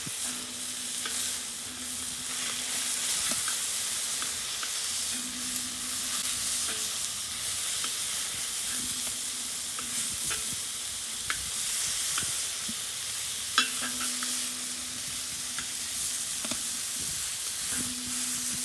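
Beef steak sizzling in a frying pan over a wood-fired rocket stove, a steady hiss with scattered light clicks of utensils against the pan. A low hum comes and goes several times.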